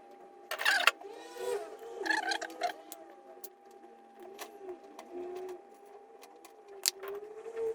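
Kindling in a fireplace crackling and snapping as it catches fire, with irregular sharp pops and a couple of brief louder flurries near the start, over a faint steady hum.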